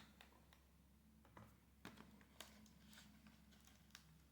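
Near silence with a few faint, short plastic clicks as a laptop's screen bezel is pried off its clips.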